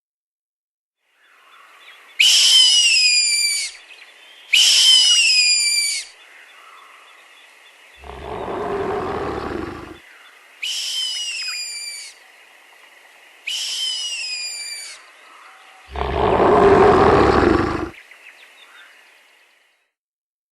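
Dinosaur sound effects: four high, shrieking calls, each falling in pitch, come in pairs, and each pair is followed by a deep roar, all over a faint steady background tone.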